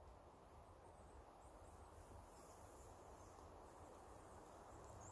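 Near silence: faint outdoor forest ambience with a low rumble and a few faint high chirps.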